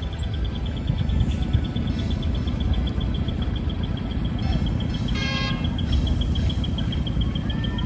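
Engines of small decorated light trucks running as they drive slowly past, giving a steady low rumble. Over it runs a rapid, even chirping of about five pulses a second, and there is a brief high tone about five seconds in.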